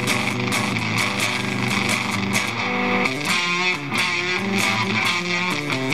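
Strat electric guitar played through a Shrimp Pistol Stun germanium fuzz pedal: a riff of quickly picked, changing notes with a thick, fuzzy distortion.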